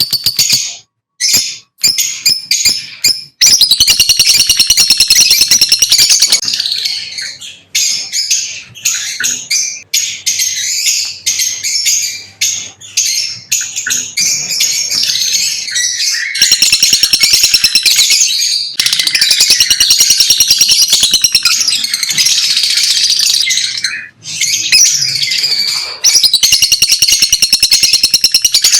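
Lovebirds chirping: a dense, loud run of shrill, rapid chirps and twitters, broken by a few short pauses.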